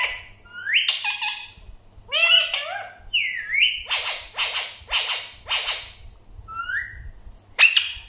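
Alexandrine parakeets calling: rising whistles and chattering calls, with four harsh squawks in a row about half a second apart around the middle, and a loud sharp call near the end.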